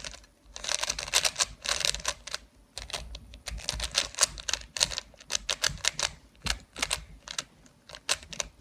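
A 3x3 Rubik's cube being scrambled: its plastic layers turned quickly by hand in a rapid, uneven clatter of clicks, with a few brief pauses.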